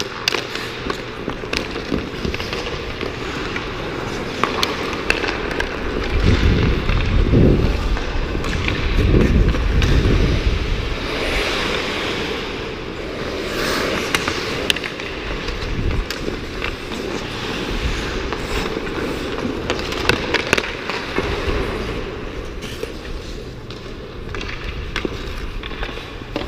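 Ice hockey play heard close up: skate blades scraping and carving the ice, with frequent sharp clacks of sticks and puck. A heavy low rumble runs from about six to ten seconds in.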